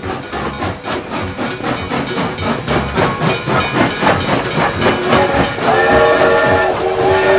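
Steam-train sound effect: a rapid clicking chuff rhythm, then a chord-like steam whistle blown twice, starting about two thirds of the way in.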